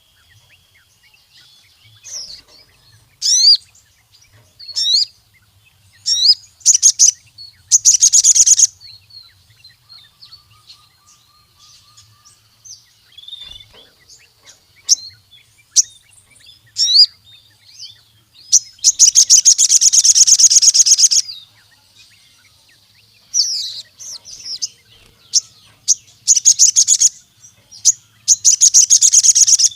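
Sogon sunbird singing in energetic bursts: short, very high, rapid trills and chips separated by brief pauses, with one longer trill of about two and a half seconds around two-thirds of the way through.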